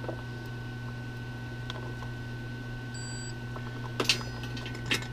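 A digital multimeter's continuity beeper gives one short high beep about three seconds in, as the probes bridge a contact of the XT60 connector during a polarity check. Two light clicks near the end, over a steady low hum.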